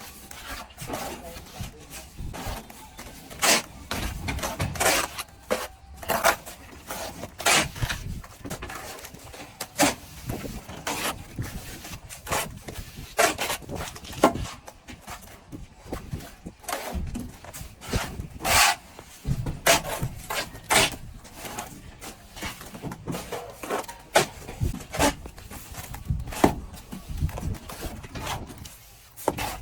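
Plastering tools working plaster: irregular scrapes and sharp knocks, with rubbing between them and no steady rhythm.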